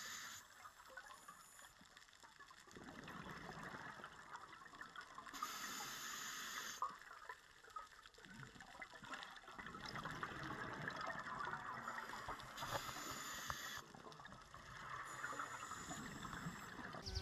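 Faint underwater bubbling and gurgling from scuba divers, coming in bursts a few seconds apart, as exhaled breath leaves the divers' regulators.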